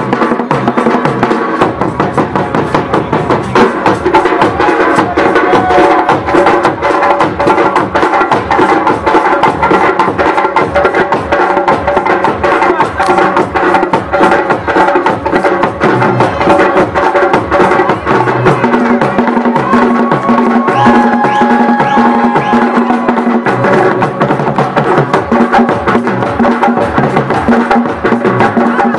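Loud, fast African drumming on hand drums, with dense strokes and pitched tones over them.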